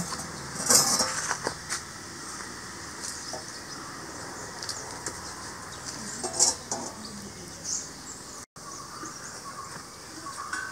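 Metal oven door and roasting tray clattering and scraping against brick as the tray is pulled out of a wood-fired oven, with a sharp scrape about a second in and another a little past six seconds.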